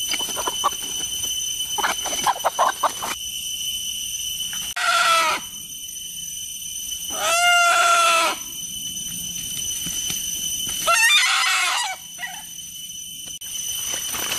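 A rooster calling loudly three times, each call about a second long and wavering in pitch. Before the first call there is crackling and brushing through leaves and undergrowth.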